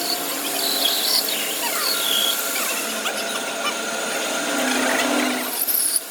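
A power tool working a steel axle in a machine shop: a continuous noisy cutting sound with short high tones about a second in and again at about two seconds.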